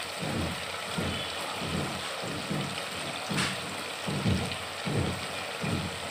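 Chicken pieces frying in oil and masala in a metal pot: a steady sizzle with low bubbling pops several times a second, and one sharp pop about halfway through.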